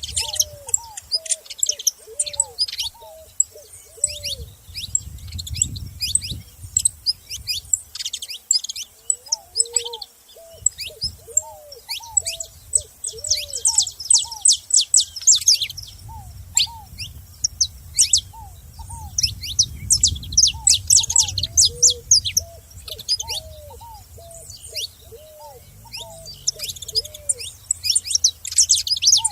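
Several saffron finches chirping, a dense stream of quick, sharp, high notes that crowds together about halfway through and again near the end. Under them runs a steady series of short, lower, repeated calls.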